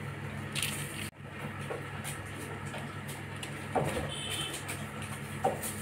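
Kittens playing on a tiled floor: a few faint taps and scuffs over a steady low room hum.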